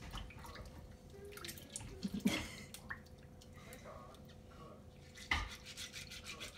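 Rice being washed by hand in a rice cooker's inner pot: water sloshing and grains rubbed against the pot, with sharper splashes about two and about five seconds in.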